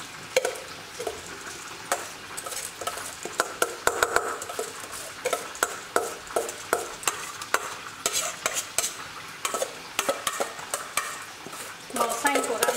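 Soaked glutinous rice poured from a stainless steel bowl into a metal mesh colander to drain: wet grains pattering and sliding, with many small clinks and scrapes of metal on metal.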